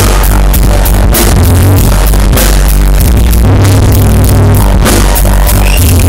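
Live electronic dance music played loud through the stage PA, with a heavy bass line and a steady beat. The bass drops out briefly about three seconds in.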